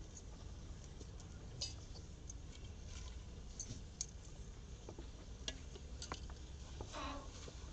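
Quiet scene with faint, scattered clicks and taps a second or so apart over a low steady hum, and a short higher-pitched sound about seven seconds in.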